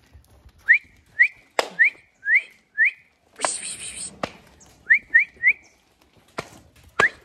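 A person's short rising whistles, repeated in quick runs (five at about two a second, then three in fast succession, then one more near the end), a shepherd's whistle urging sheep to move forward through a pen. A few sharp knocks and a brief rasping noise come in between.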